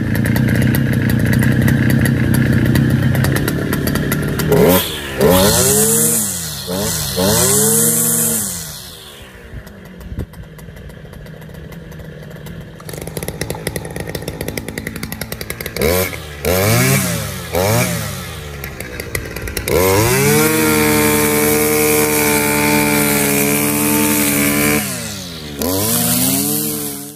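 Stihl two-stroke brush cutter engine catching and running on choke with a steady note, then revved up and down several times. It drops to a low idle midway, and in the second half is held at high revs, cutting grass, with more revving near the end.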